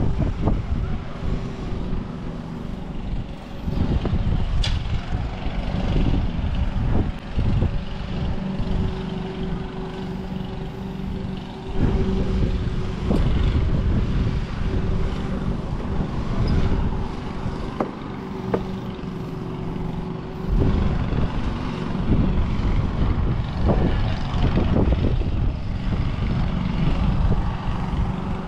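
Wind buffeting the microphone in uneven gusts, with a steady mechanical hum running underneath through the middle stretch.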